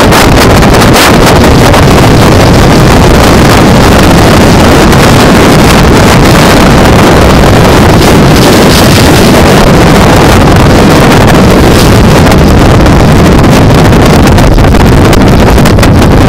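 Strong wind buffeting the camera microphone in a loud, unbroken rumble with gusty flutter.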